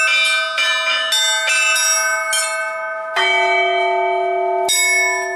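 Set of belfry bells struck by hand one after another, several smaller bells ringing on and overlapping in a church-style peal. About three seconds in a deeper bell is struck, and another strike comes near the end.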